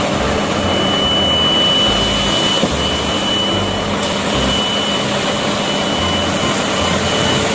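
Dump truck engine sound: a loud, steady rushing engine noise with a thin high whine held over it.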